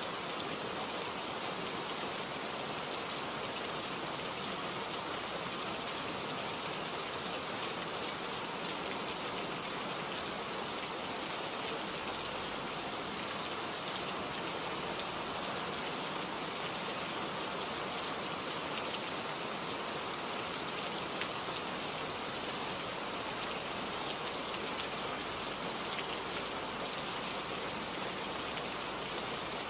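Heavy rain falling steadily: an even, unbroken hiss with faint scattered drop ticks.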